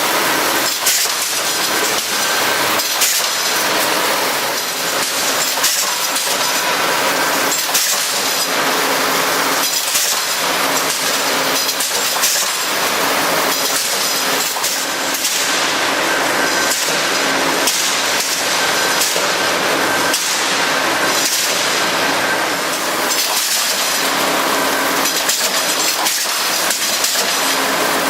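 Wire straightening and cutting machine running: a steady mechanical hum with a dense, irregular clatter of metal knocks and rattles.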